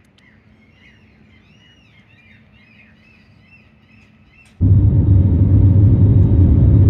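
Birds singing faintly in short chirps and whistles over quiet outdoor background. About four and a half seconds in, this cuts abruptly to the loud, steady low rumble of a jet airliner's cabin in flight.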